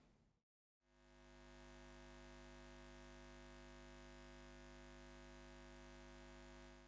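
Near silence, with a very faint steady electronic hum of several held tones that fades in about a second in and fades out near the end.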